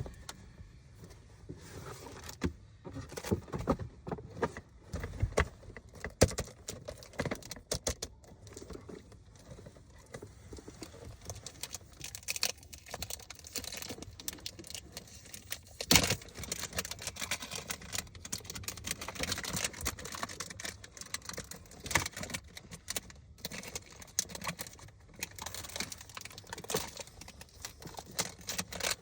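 Hands unboxing a perfume: cardboard packaging and wrapping rustling, scraping and clicking unevenly, with a few sharp knocks, the loudest about 6 and 16 seconds in.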